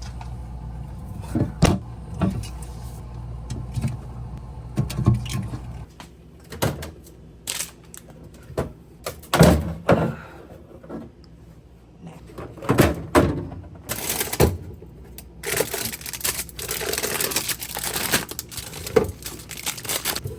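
Food containers and packaging being handled while a refrigerator is emptied: scattered knocks and thuds of items being picked up and set down, then a longer stretch of rustling, crinkling plastic in the second half.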